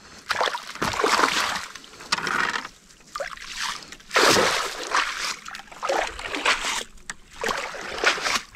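Water splashing and sloshing in repeated surges as a cast net is dragged and swished through the shallow water beside a small boat, washing mud out of the mesh.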